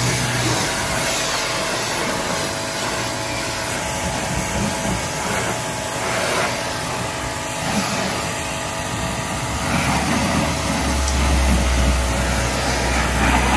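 Pressure washer running, a steady motor hum under the hiss of the spray. A low rumble joins in near the end.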